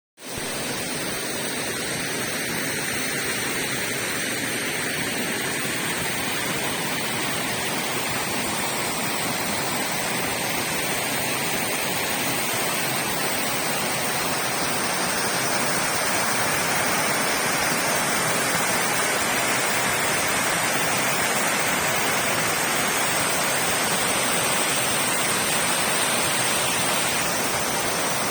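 Waterfall pouring steadily, a constant rush of falling water that grows slowly and slightly louder.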